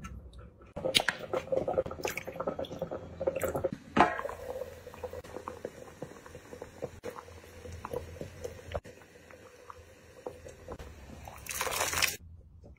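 Wet squishing and dripping of liquid in a pan as a piece of meat is dipped in it, with sharp knocks and clicks in the first few seconds and a louder splashing surge near the end.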